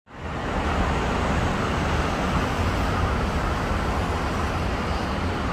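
Steady outdoor vehicle noise: a continuous low rumble under an even hiss, with no rise or fall.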